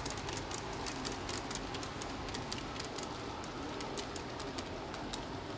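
G-scale model freight train rolling along outdoor garden-railway track, its wheels clicking irregularly over the rail joints over a steady running rumble, with a bird calling.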